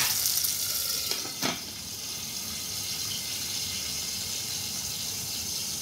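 Garlic frying in olive oil in a pan, a steady sizzle. About a second and a half in, the glass lid clinks back onto the pan and the sizzle goes quieter.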